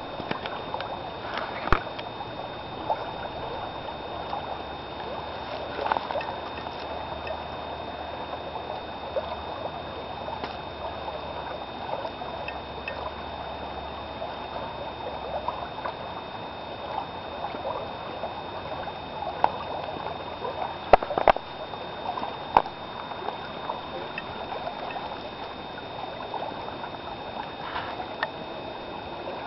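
Creek water flowing and babbling, a steady trickling rush. A few sharp clicks stand out over it, a couple of them close together about two-thirds of the way through.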